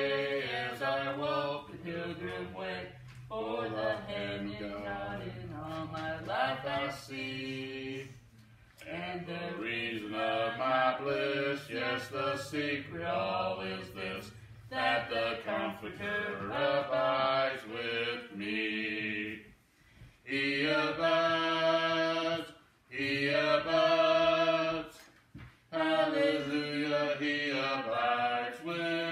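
A woman singing a hymn in phrases with long held notes, pausing for breath between lines, over a low steady tone.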